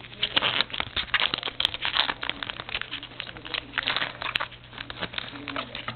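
Trading-card pack wrapper crinkling and rustling as it is torn open by hand, a dense run of irregular crackles that tails off near the end.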